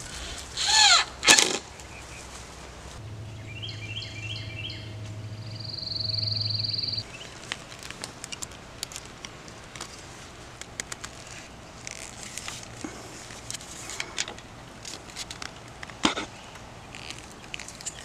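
Scattered small clicks and rattles of tie wire being twisted around white pipe with pliers. Near the start there is a short high squeak that bends up and down, then a sharp knock. A few seconds in, a steady high whine over a low hum runs for about four seconds and cuts off.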